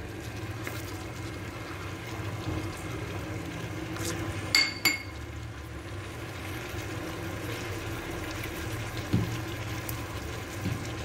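A ceramic bowl clinking twice against the rim of an aluminium pot, with a short ring, as spices and garlic are tipped in; a dull knock near the end, over a steady low hum.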